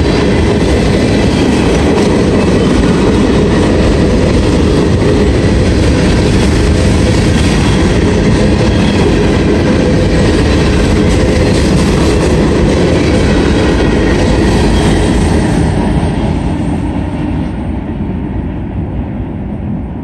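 Freight train of covered hopper cars rolling past close by: a loud, steady rumble of steel wheels on rail. It fades over the last few seconds as the end of the train goes by.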